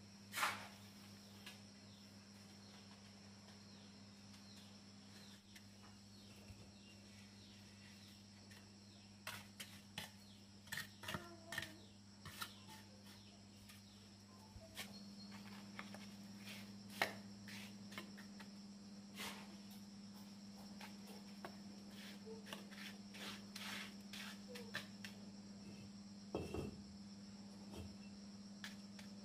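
Steel trowel tapping and scraping on red clay bricks and wet mortar as bricks are set, in scattered short clicks and scrapes, over a steady high insect drone.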